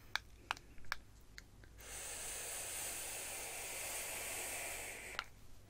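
A long draw on a Pulse 80-watt bottom-feeder vape mod: a steady airy hiss of air pulled through the atomizer for about three seconds, after a few faint clicks.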